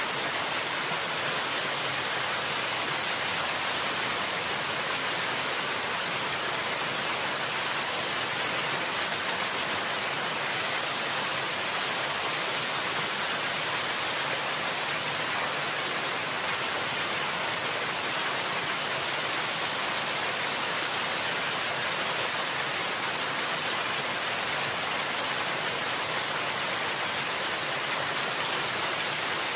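Steady, even hiss of rushing or falling water, with no splashes or drops standing out.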